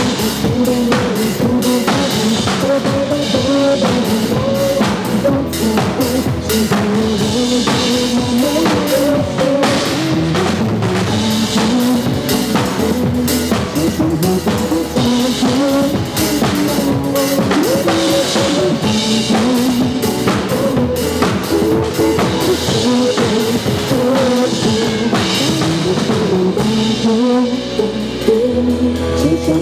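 Drum kit played over a recorded pop backing track: a dense, steady beat of kick and snare strokes under the song's melody.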